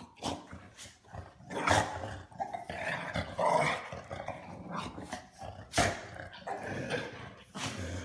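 A shar pei and a shiba inu play-fighting: growling in irregular bursts with a few short sharp barks, loudest about two seconds in and again near six seconds.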